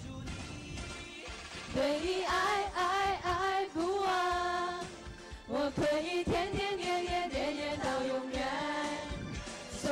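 A large class of students singing a song together with music; the loud singing comes in about two seconds in and keeps going with a short dip midway.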